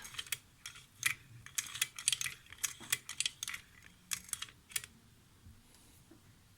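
Casige pre-war toy sewing machine being worked, its small metal mechanism giving a quick run of irregular light clicks that stops a little under five seconds in.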